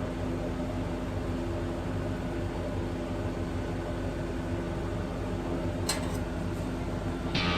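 A steady low mechanical hum made of several fixed low tones, with a single short click about six seconds in; guitar music starts right at the end.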